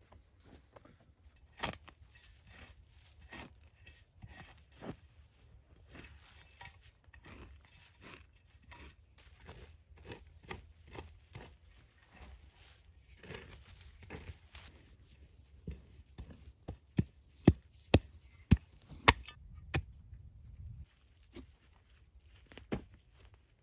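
Scattered crackles and snaps of handling and cutting work, then a run of about six sharp knocks, roughly two a second, about two-thirds of the way through.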